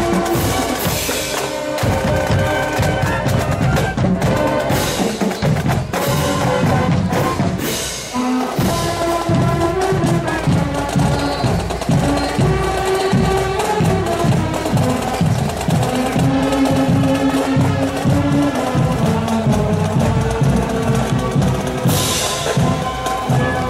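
High school marching band playing while marching: saxophones and brass holding notes over bass and snare drums. The drums drop out briefly about eight seconds in, then keep a steady marching beat.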